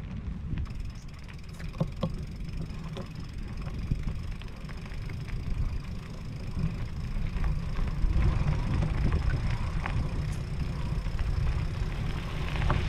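E-mountain bike rolling over a gravel track, with tyres crunching and scattered small stone ticks under a steady rumble of wind on the microphone that grows louder in the second half.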